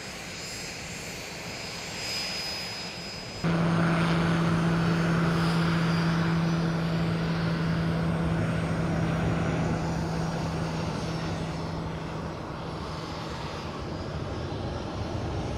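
Embraer A-29 Super Tucano's turboprop engine and propeller running at takeoff power, a steady drone with a strong low hum. It jumps suddenly louder about three and a half seconds in, then slowly fades, the hum dying away near the end as the aircraft climbs away.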